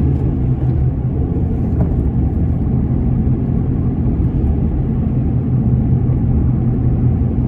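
Ford Ranger pickup engine pulling steadily uphill in second gear, heard from inside the cab as a steady low rumble with road noise. It runs evenly under load after a tune-up and a new ignition coil for a misfiring cylinder.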